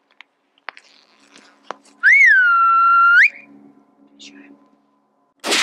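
A loud whistle lasting about a second: it rises, dips, holds one steady pitch, then slides up at the end. A sudden loud blast comes right at the end.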